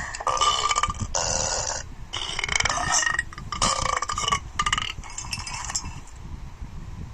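A series of loud burps, about six in the first six seconds, each a rough, drawn-out belch. They fade out near the end.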